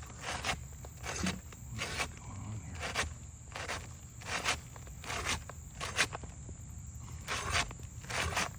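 Irregular scrapes and crunches on asphalt roof shingles, short strokes coming about one or two a second.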